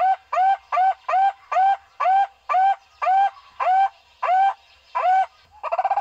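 Barbet calls: a series of loud hooting notes, each rising then held, coming more and more slowly until they stop about five seconds in. Just before the end a fast rolling trill starts.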